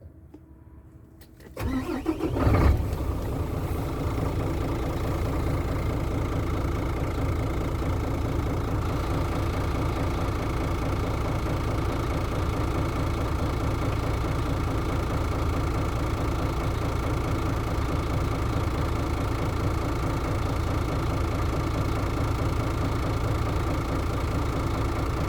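Mercedes-Benz Actros 1844 truck's diesel engine (OM 501 LA V6) cranking for about a second, catching with a brief flare about two and a half seconds in, then settling into a steady idle.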